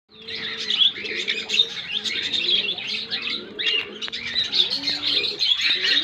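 Many small aviary birds chirping and tweeting without a break, with low, repeated cooing notes running beneath, like a dove's.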